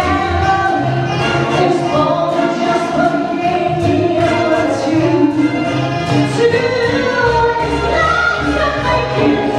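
A woman singing live into a handheld microphone over an instrumental backing, holding long notes and belting near the end.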